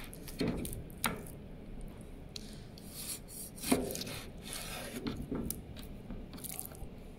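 Meat cleaver chopping boneless pork belly on a wooden cutting board: several sharp knocks of the blade hitting the board, the loudest about halfway through, with rubbing and scraping between strokes.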